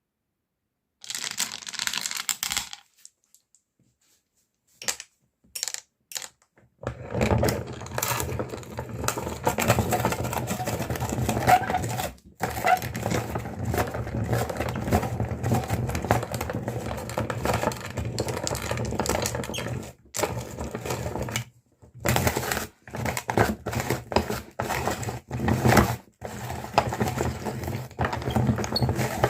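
Meat grinder grinding colourful candy: from about seven seconds in, a dense crunching clatter of candy being broken up over the steady hum of the grinder, stopping briefly a few times. Before that there are a short burst of noise and a few scattered clicks.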